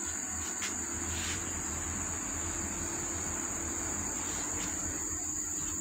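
Insects calling in one steady, unbroken high-pitched chorus, over a faint low hum.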